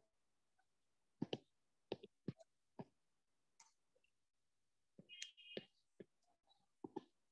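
Stylus clicking and tapping on a tablet screen while a curve is drawn: about a dozen soft, irregular clicks over near silence, with a brief high squeak about five seconds in.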